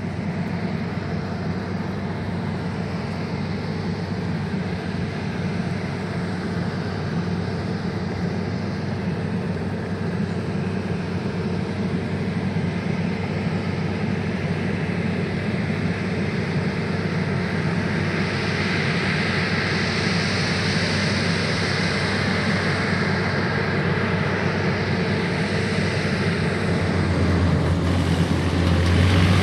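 Claas Lexion 570 TerraTrac combine harvester running at work, a steady mechanical drone of engine and machinery that grows louder near the end.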